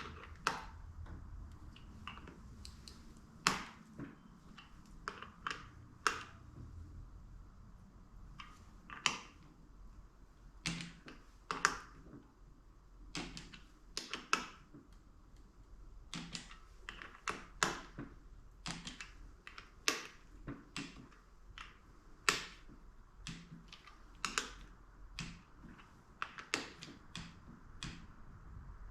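Irregular sharp metallic clicks, singly or in short runs of a few, from a ratchet and torque wrench tightening the clutch spring bolts.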